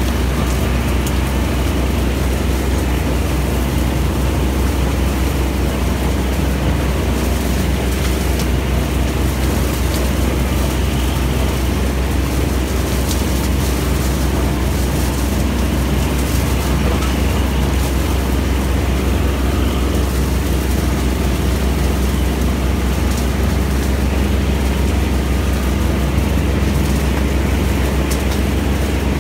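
A mowing machine's engine running steadily at constant speed, a loud, even low drone.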